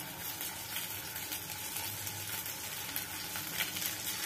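Slurry-coated arvi-leaf pakoras sizzling as they fry in hot mustard oil in a kadhai, a steady crackling fry that grows a little louder as more pieces go into the oil.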